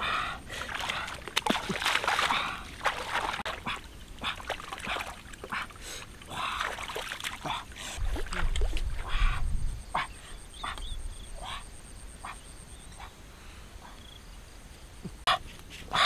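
Shallow pond water splashing and sloshing as a person wades in and snatches fish by hand, with a dog giving short barks now and then.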